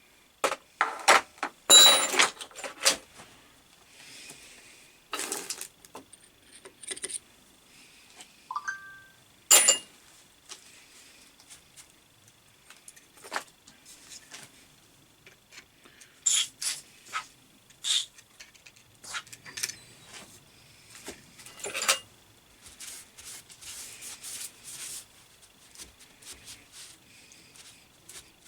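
Metal parts of a lathe fixed steady and hand tools clinking and knocking in irregular bursts as a sticking finger is worked free, with a few sharp ringing taps, the loudest about two seconds in and again near ten seconds.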